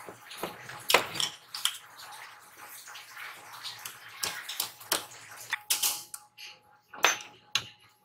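Metal parts and tools clinking and knocking on a workbench as brass pipe fittings and steel brackets are handled, in irregular sharp clicks.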